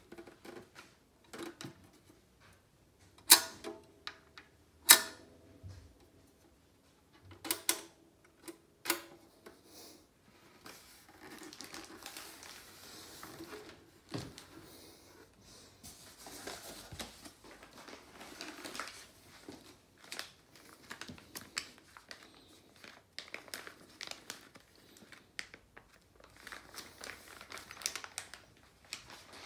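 Handling of a portable car record player and its packing: a few sharp clicks and knocks in the first nine seconds, the two loudest about three and five seconds in, then ongoing crinkling and rustling of plastic wrapping.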